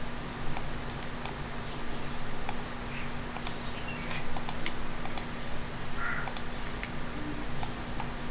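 Faint, irregular clicks of a computer mouse over a steady low electrical hum.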